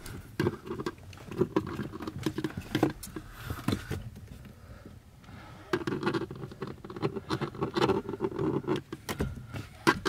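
Small clicks and knocks of hand work at a car's clutch pedal, as the old clutch stop is popped out and a new one pressed in. The clicks come in an irregular run, busiest in the second half.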